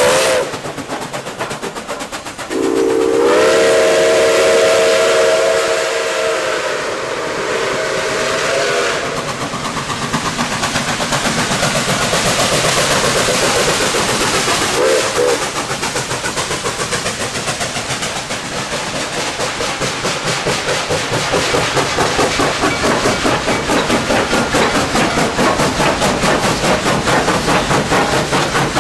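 Nickel Plate Road 765, a 2-8-4 Berkshire steam locomotive, sounding its steam whistle: the end of one blast at the start, then a long chord-like blast from about two and a half seconds in, lasting some six seconds. After that the locomotive and its train run past with steam hiss and a steady rhythmic beat, pulsing about twice a second toward the end.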